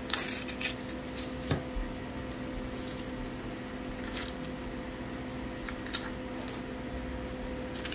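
Wet squishing and crinkling of a cream cheese block being squeezed out of its wrapper by hand, with scattered short clicks, over a faint steady hum.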